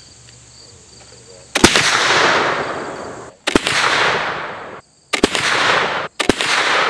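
A .40 caliber flintlock rifle firing four shots, each a sharp crack followed by a long echo that trails off over a second or more. Each echo breaks off abruptly where the next shot begins.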